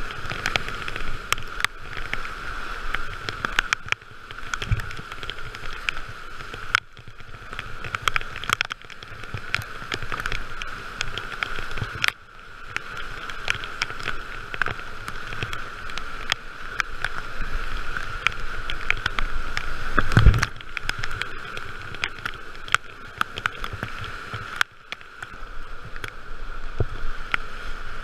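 Whitewater rapids rushing and splashing around a kayak, with spray spattering onto the camera in many sharp ticks. Two heavy thumps stand out, one about five seconds in and one about twenty seconds in.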